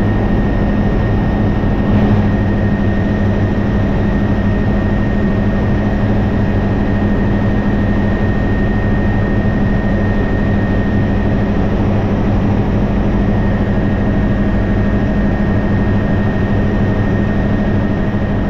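Helicopter in flight: steady engine and rotor drone with a thin high whine above it.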